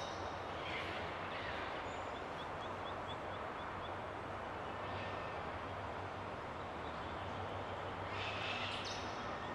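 Steady outdoor background rush with a low hum, and faint bird calls over it, including a quick run of about eight short high chirps about two seconds in and a brighter high call near the end.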